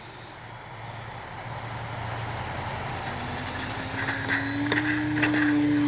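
E-flite Piper Cherokee RC plane's brushless electric motor and propeller, on a 3S battery, running up for takeoff: a whine that grows steadily louder and rises in pitch as the plane accelerates.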